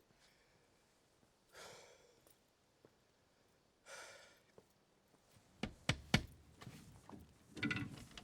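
A man breathing out heavily in two long sighs, then a few sharp knocks close together about six seconds in, followed by another breath near the end.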